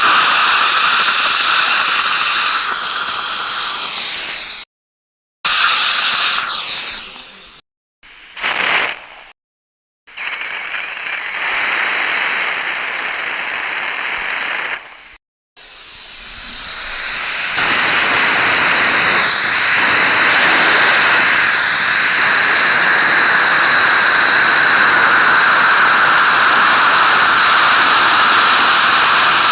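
Dental suction tool sucking air with a loud, airy hiss, switched off and on several times with sudden cut-offs in the first half, then running steadily from about halfway through.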